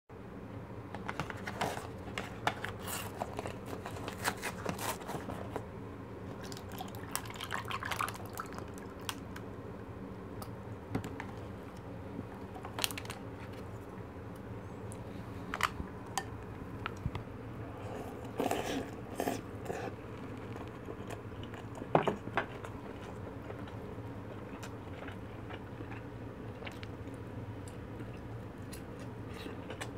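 Close-miked mukbang eating sounds: juice poured over ice in a plastic cup, sharp clicks and taps of ice and wooden chopsticks, then soft chewing of fish cake. A steady low hum lies under it.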